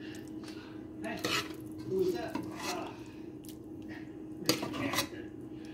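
A metal utensil stirring macaroni and shredded cheddar in a glass baking dish: soft scraping with several sharp clinks against the glass, the loudest a little past the middle.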